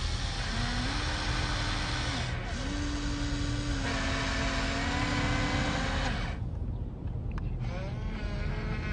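Small electric motors and gearboxes of a Huina RC construction model whining as they run. The whine shifts in pitch in steps, stops and restarts, drops away about six seconds in, then starts again with a rising whine near the end.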